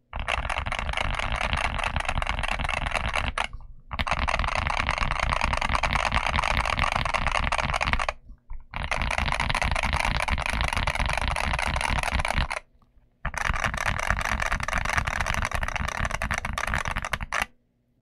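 Fast, continuous typing on a Boyi 66 Pro HE keyboard with linear Hall-effect switches and F/S ST keycaps. It comes in four runs of a few seconds each, separated by brief pauses.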